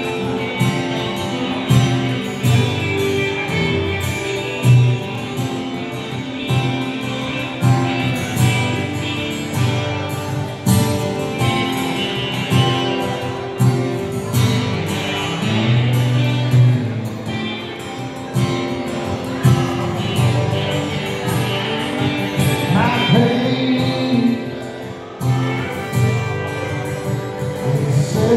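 Live band playing a song on electric guitar, acoustic guitar and steel guitar.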